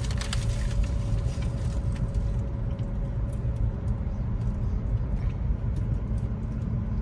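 Steady low rumble of a car's road and engine noise inside the cabin while driving, with a brief crinkle of a paper bag in the first second or so.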